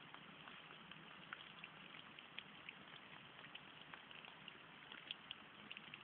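Small woodland brook babbling faintly: a steady trickle of running water with many small, irregular splashes and drips.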